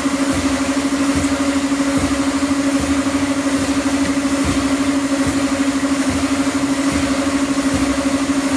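Escalator running: a steady mechanical hum with a fast, even flutter.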